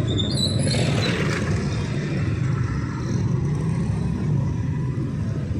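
Road traffic close by: vehicle engines running steadily, with one vehicle passing about a second in. A brief high-pitched squeak at the very start.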